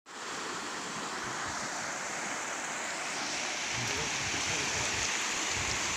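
Steady rushing of floodwater, a continuous even roar that grows slightly louder about halfway through, with low rumbles underneath in the second half.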